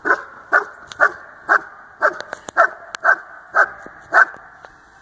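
Dog barking steadily at a ball-dropper training device: nine sharp barks at about two a second, which stop a little past four seconds in. The barking is the dog's cue to get the ball released.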